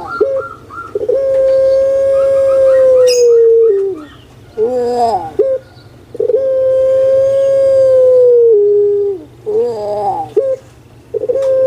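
Puter pelung (ringneck dove, Streptopelia risoria) cooing loudly. There are three calls, each a short warbling lead-in followed by a long drawn-out steady note of two to three seconds that drops slightly in pitch at its end.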